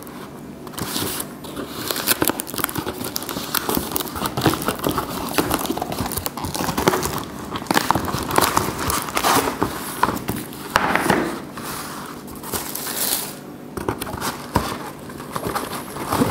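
Hands unpacking a shoe delivery: cardboard boxes and flaps scraping and knocking, with paper and plastic wrapping crinkling and rustling in irregular bursts. Near the end it is the tissue paper around the shoes being pulled aside.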